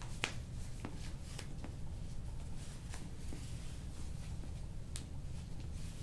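Soft rustling and a few light, scattered clicks of hands and cloth moving, as a towel wipes oil off a patient's back, over a steady low hum.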